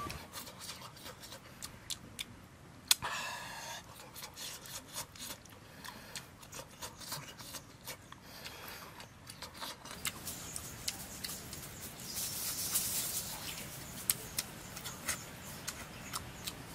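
Eating sounds of a scrambled-egg-stuffed green bell pepper: crisp bites and wet chewing clicks, scattered irregularly. A sharp click about three seconds in is followed by a short wavering pitched sound.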